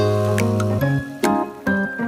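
Light instrumental background music, with a low bass note held through the first second under a run of higher notes.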